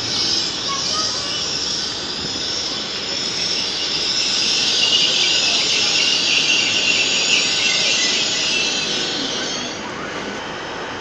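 Passenger train running into the platform and braking to a stand: a high, hissing wheel-and-brake noise that grows loudest midway and stops about ten seconds in as the train halts.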